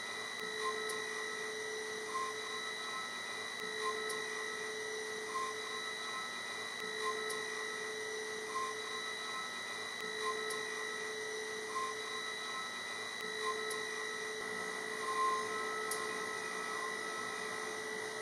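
DATRON M8Cube high-speed milling spindle whining steadily as a foam-cutting end mill cuts pockets in polyurethane foam. The whine holds several steady tones, with a short swell about every second and a half.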